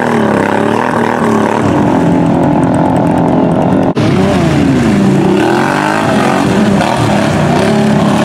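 Quad ATV engine revving up and down, working hard under load as the quad churns through a deep mud hole. The sound breaks off abruptly about four seconds in, and the revving starts again straight after.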